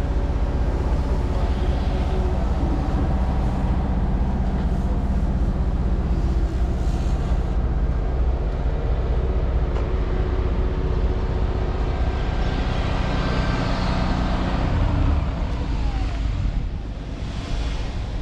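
Diesel engine of a Terex Cedarapids CR452 asphalt paver running steadily; near the end its pitch falls and it gets a little quieter, as the engine slows.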